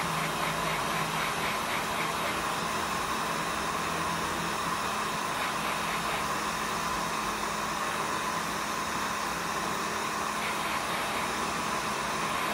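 Hot-air rework tool blowing steadily onto a laptop motherboard, an even rushing hiss that does not change, while the RAM power-supply chip is heated for soldering.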